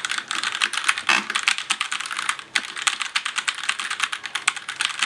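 Fast typing on a Razer BlackWidow Lite TKL mechanical keyboard with Razer Orange tactile, silent switches: a quick, uneven run of key clacks, several a second. It is still pretty loud.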